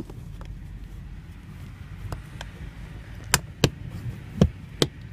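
Plastic cabin air filter access cover being pressed into place, with a few sharp clicks in the second half as its clips snap shut, over a steady low rumble.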